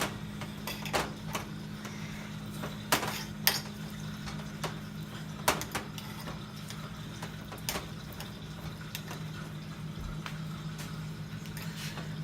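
A fork clinking and scraping against a bowl while mashing seasoning into firm, unsoftened butter, in irregular sharp clicks, over a steady low hum.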